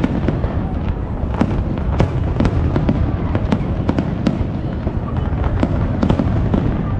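Aerial fireworks shells bursting in a rapid, irregular run of bangs and crackles, several a second, over a steady low rumble.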